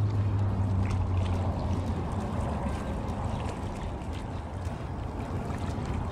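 Small waves lapping against shoreline rocks, with light splashes and wind, over a steady low hum that eases after about a second and a half.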